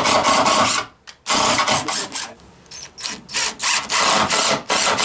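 Power drill running in about five bursts of roughly a second each, starting and stopping abruptly: boring pilot holes into wood and driving screws through a steel counterbalance bracket plate into the cabinet top.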